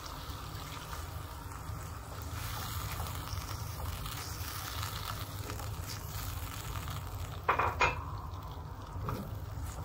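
Sauce and water bubbling and sizzling in a non-stick wok as a silicone spatula stirs it, over a steady low hum. A brief louder sound comes about three-quarters of the way through.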